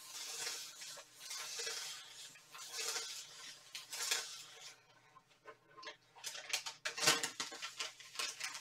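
A small handheld iron slid back and forth over brown kraft paper, a scratchy rustle swelling with each stroke, pressing the paper to lift glue residue off a T-shirt. From about six seconds in the paper crackles and crinkles as it is handled and lifted off the fabric.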